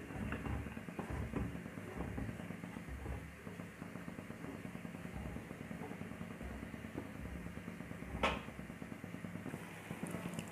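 Wooden spatula stirring thick, reduced milk in a steel pan, with a low steady rumble underneath and one sharp knock about eight seconds in.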